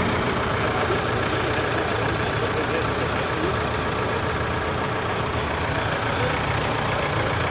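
Singer Monarch tractor's engine idling steadily.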